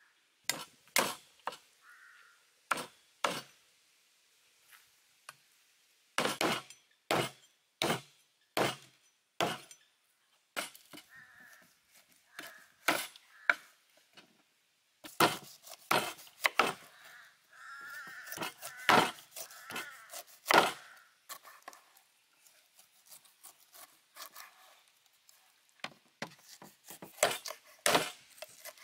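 Heavy cleaver chopping raw beef ribs through the bone onto a round wooden chopping board: sharp, hard chops in runs, about one a second at times and faster in a cluster in the middle.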